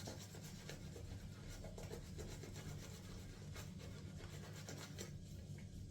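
Shaving brush working a dense shave-soap lather: faint rubbing and scratching with many small crackles, over a steady low hum.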